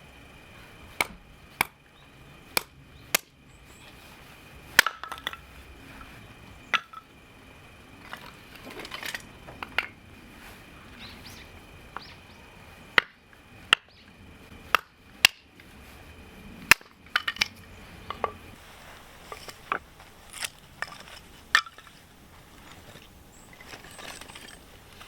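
Irregular sharp knocks and clinks, a dozen or more spread over the stretch, some ringing briefly, over a faint steady high tone that stops about two-thirds of the way through.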